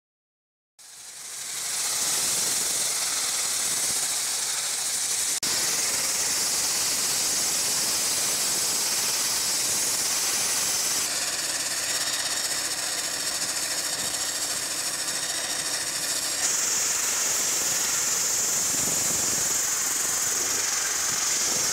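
High-pressure water jet from a hydro-blasting lance, hissing steadily as it strips rust and coating off a steel tank's exterior. It fades in about a second in and changes tone slightly twice.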